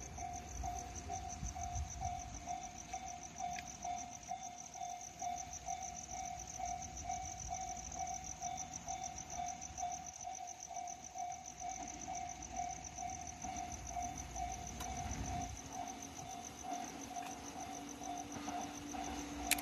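A Japanese railway level crossing's electronic warning bell ringing in a steady, even beat. In the last few seconds the low engine drone of an approaching DE10 diesel-hydraulic locomotive running light comes in underneath.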